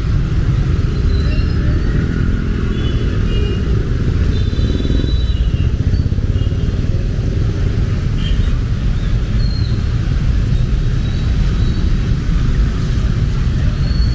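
Road traffic in the rain: a steady low rumble of vehicle engines running, with an even hiss of rain over it.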